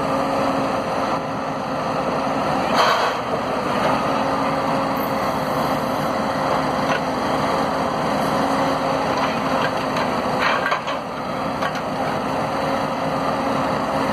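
Komatsu 895 forwarder running steadily with its engine and hydraulic crane working, as the grapple loads eucalyptus logs onto the bunk. Wooden knocks of logs striking together come about three seconds in and again after ten seconds.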